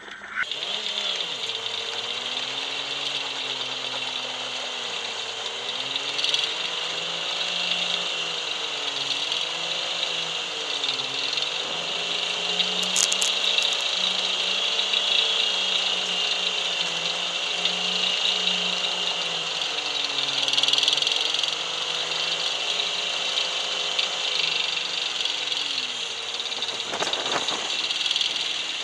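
Diesel engine of a New Holland TM130 tractor groomer running under load while it tows a snow-grooming drag, its pitch rising and falling as the throttle and load change, over a steady high hiss.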